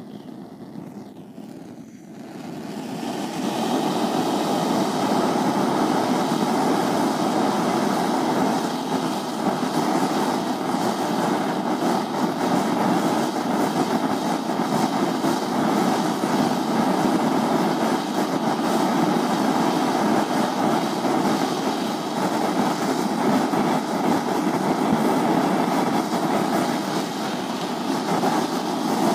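Homemade petrol-air jeweller's torch burning with a steady rushing hiss. It grows louder over the first few seconds as the flame is set, then holds even.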